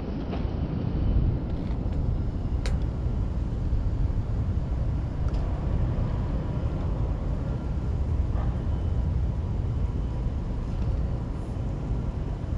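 Wind rumbling steadily on the microphone, with one faint click about two and a half seconds in.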